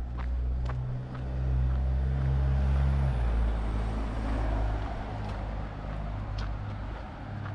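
A motor vehicle's engine running close by: a steady low hum that drops slightly in pitch about three seconds in. A swell of tyre and road noise rises around four to five seconds in and then fades, with a few footsteps on the pavement.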